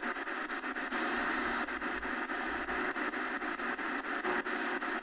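Shortwave static hissing steadily from the XHDATA D-901 radio's speaker, with faint crackles repeating evenly, as the receiver sits between stations on the shortwave band.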